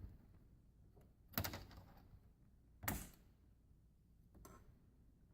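Plastic bezel of a Chromebook screen being wiggled and pried off, giving a few short sharp plastic clicks and knocks about a second and a half apart, with a fainter one near the end.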